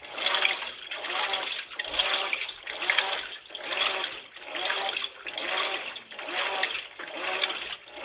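GE top-load washing machine agitating a load of clothes in water. The agitator reverses about once a second, and each stroke brings a swish of water and a motor whine that rises and falls in pitch.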